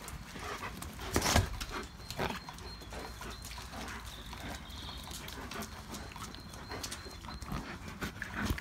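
A pack of German shepherds romping on wet concrete: scrabbling paws and clicking claws, with one louder knock a little over a second in.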